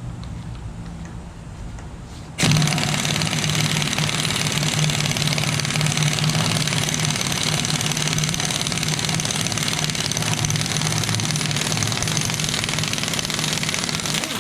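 Impact wrench starting suddenly about two seconds in and hammering steadily for about twelve seconds. It is driving the centre bolt of a harmonic balancer puller to press the balancer off an LS1 V8's crankshaft snout.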